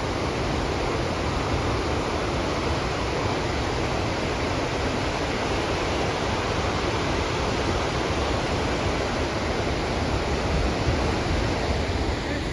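Urriðafoss waterfall on the Þjórsá river: a steady, loud rush of falling water.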